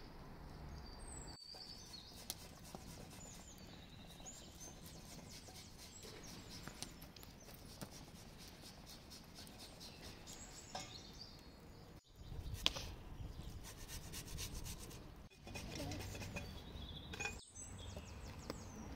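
Faint outdoor ambience with occasional high bird chirps and light rapid clicking, cutting off and changing abruptly a few times.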